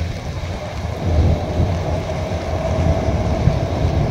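Keisei Main Line train running across the steel truss railway bridge: a low, steady rumble with a whine that grows stronger from about a second in.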